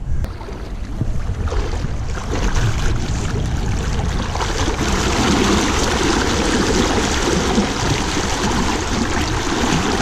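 Legs wading through a fast, clear river, the water splashing and sloshing around them over the steady rush of the current.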